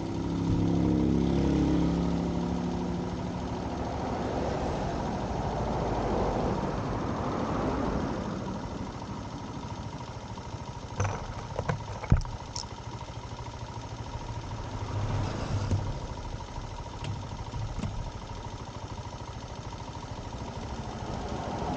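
Motor vehicle engines running, with engine noise swelling and fading as vehicles pass. A few sharp clicks come near the middle.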